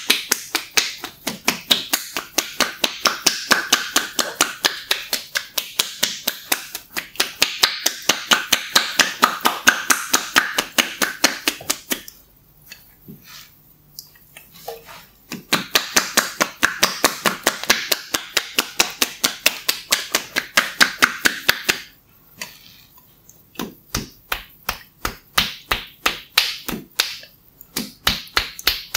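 Rapid, rhythmic cracking taps from a massage therapist's hands working on a client's head and hair during a head massage, about six a second. The taps come in three long runs, with short pauses after about twelve seconds and about twenty-two seconds.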